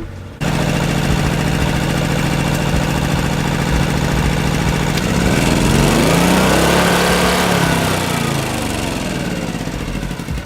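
Small portable petrol generator engine running, with no load connected; its pitch rises and falls once in the middle.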